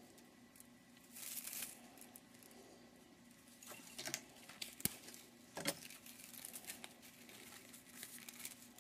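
Faint crinkling and tearing of tape-wrapped cable insulation being handled, in short bursts, with a single sharp click about five seconds in.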